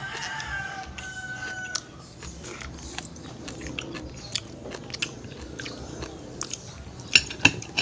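Clam shells clicking and crunching as they are pried open with a small blade in a bowl, with a cluster of louder sharp clicks near the end.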